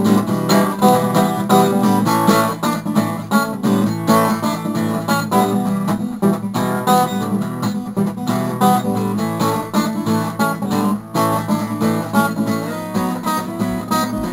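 Instrumental break in a song: acoustic guitar strumming, with no singing.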